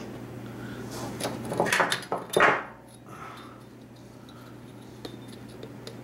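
Handling clatter: a steel ruler being picked up and set against faux rock pieces, with clicks and scrapes about a second in, loudest at about two and a half seconds, then only faint taps.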